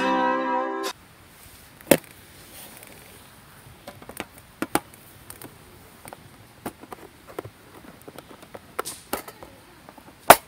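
Guitar music cuts off about a second in, followed by scattered, irregular sharp clicks and snaps over a quiet background, the loudest one near the end.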